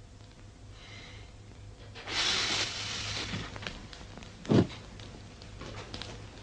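A hearth fire flares up with a loud rushing whoosh about two seconds in, followed by scattered crackles. About four and a half seconds in there is one short, low thud.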